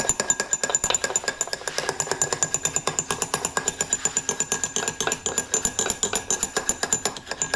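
Foundry rapping tool rattling rapidly against a steel rap rod set in the pattern, worked all the way around it: an even run of metallic clinks, about ten a second, with a steady ring. This rapping loosens the pattern from the rammed green sand so it can be drawn from the mold.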